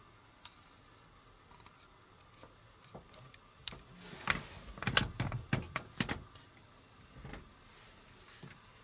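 Camera handling noise: a quick cluster of sharp clicks and knocks as the camera is swung and zoomed out, a few seconds in, then a couple of fainter ticks.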